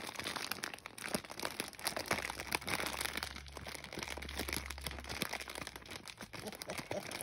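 Plastic snack bag crinkling and rustling as it is held and shifted by hand, a dense run of small irregular crackles.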